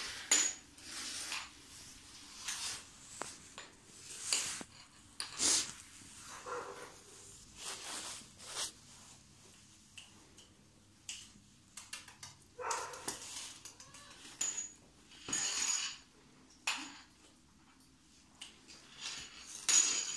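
Scattered scuffs, clicks and light metallic clinks of a greyhound moving about on a tiled floor, its leash dragging and rattling.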